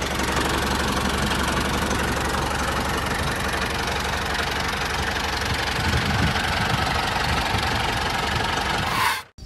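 An engine idling steadily with a fast, even knocking clatter, like a small diesel. It cuts off abruptly near the end.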